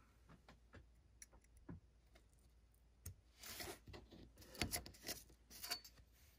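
Faint scattered ticks, then from about three seconds in a few seconds of rustling and sharp clicks as a steel scale ruler and a sheet of roofing paper are shifted about on a cutting mat.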